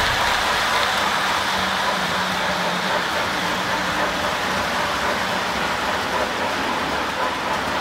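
O-gauge model freight cars rolling past on three-rail track: a steady rolling rush of metal wheels on rail, with a faint low hum underneath.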